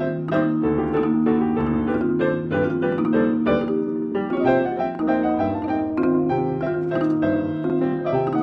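Background piano music, a quick, steady run of notes.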